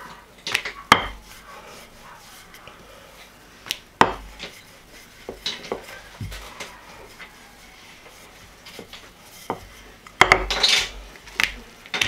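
Wooden rolling pin rolling out dough on a countertop: scattered sharp knocks as the pin is set down and lifted against the counter, with handling of the dough in between, and a louder burst of clatter and rustling about ten seconds in.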